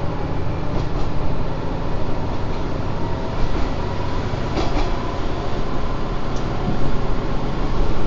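Inside a Kanto Railway KiHa 5000 diesel railcar gathering speed: a steady rumble of the diesel engine under power and wheels on the rails, with a few sharp clicks from the track.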